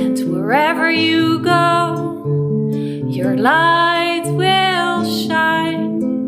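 Ngoni harp tuned to 432 Hz, plucked in a repeating low pattern, with a wordless sung voice that glides up into two long held phrases, one about half a second in and another around three seconds in.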